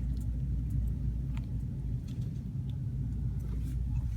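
A steady low rumble or hum, with a few faint clicks.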